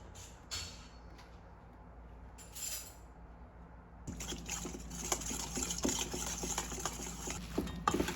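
Water starts running about halfway through, a steady splashing with small clinks and knocks mixed in. Before that it is fairly quiet apart from a couple of soft rustles.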